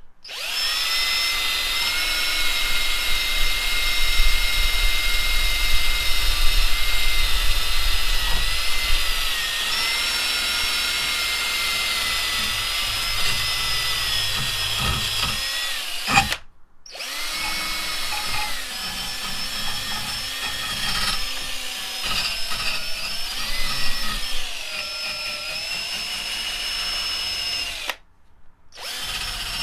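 Small high-speed handheld power tool sanding down cured JB Weld epoxy. Its motor runs with a steady whine whose pitch dips and wavers as it bears on the work, and it stops briefly twice, about sixteen seconds in and again near the end.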